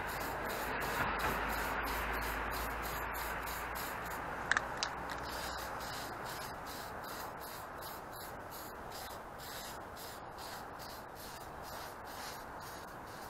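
Aerosol spray-paint can hissing steadily as paint is sprayed, slowly fading toward the end, with two short clicks about four and a half seconds in.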